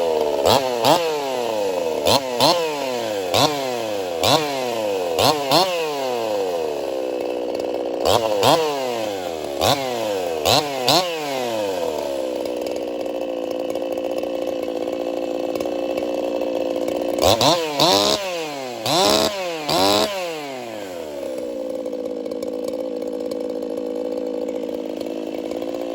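Ported Echo 4910 50cc two-stroke chainsaw being blipped: about a dozen quick throttle snaps in the first twelve seconds, each revving hard and falling back to idle, then a steady idle, three or four more quick revs a little past halfway, and idling again. The carburettor tune sounds spot on to the owner.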